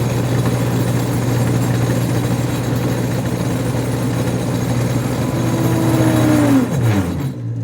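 OTC Judge 2 alternator tester's drive motor spinning a failing 1988 Corvette alternator by belt: a loud, steady machine hum. Near the end a whine falls steeply in pitch as the motor bogs down under the bad alternator's load, dragging line voltage below 90 volts and tripping the breaker.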